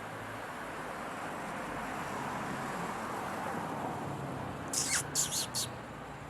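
A small animal giving four quick, high-pitched squeaks about five seconds in, over a steady background hiss.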